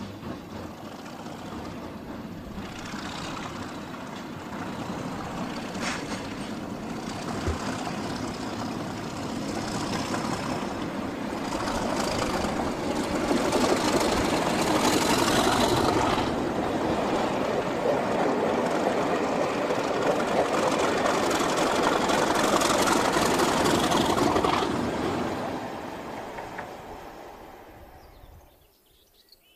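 Class 37 diesel locomotive, its English Electric V12 engine running as it hauls a short train of coaches past. The sound builds as the train approaches, is loudest for about ten seconds as it goes by, then fades away over the last few seconds.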